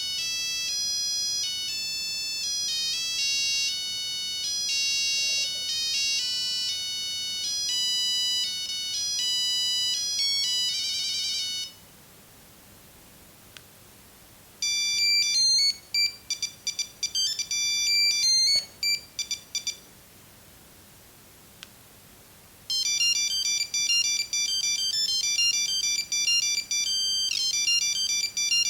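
Nokia 6310 mobile phone playing its built-in monophonic ringtones one after another: three different high, beeping melodies in turn, with pauses of about three seconds between them. The first ends in a fast trill, and the third is still playing at the end.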